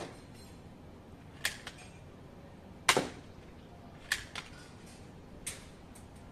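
Toy BB rifle firing single shots: a series of sharp snaps about a second or so apart, some followed closely by a fainter click.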